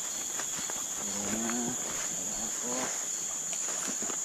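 Steady high-pitched chorus of forest insects, one unbroken shrill tone, with faint voices talking about a second in.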